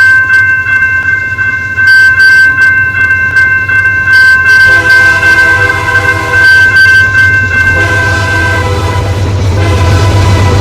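Locomotive air horn sounding a long chord of several tones, with a lower chord joining about halfway and the pitch sagging slightly near the end, over the low rumble of the train and clicks of wheels on the rails.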